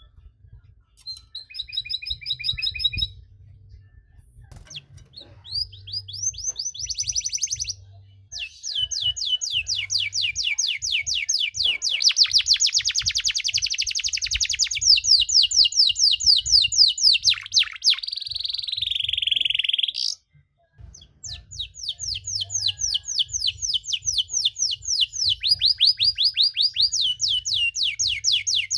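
Domestic canary singing a long song made of fast trills, each a rapid run of repeated notes, switching from one trill to the next every few seconds. A lower, rolling trill comes about two-thirds of the way through, then a short pause before the song resumes.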